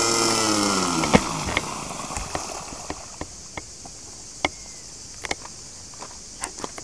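The small propeller engine of a Dumas radio-controlled airboat winds down, its high pitch falling away over the first second and a half until it stops. Scattered sharp clicks and knocks follow as the boat comes to rest in the shallows.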